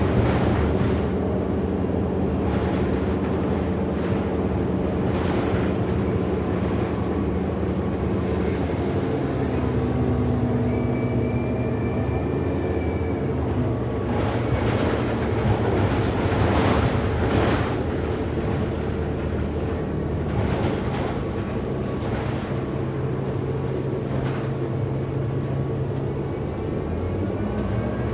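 Onboard sound of a 2008 Orion NG hybrid-electric bus under way: a steady motor hum made of several held tones, which shift to new pitches about nine seconds in and again near the end, over road and body noise. This is the motor sound the rider finds weird.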